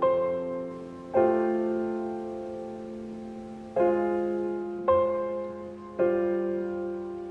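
Background music: slow solo piano, chords struck every one to two seconds and left to ring out.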